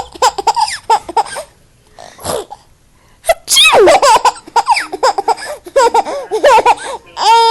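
A baby laughing in choppy bursts of giggles and high squeals, with a short breathy burst about two seconds in and a held high cry near the end.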